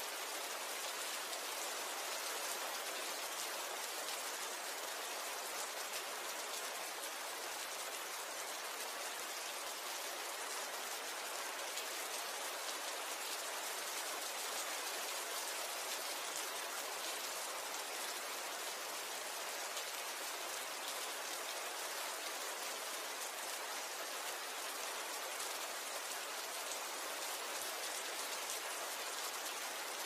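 Steady rain: an even hiss of countless drops falling, holding the same level throughout.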